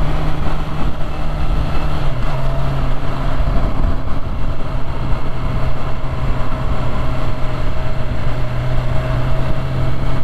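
Sport bike engine running steadily at cruising speed, mixed with wind and road noise; the engine note dips slightly about two seconds in.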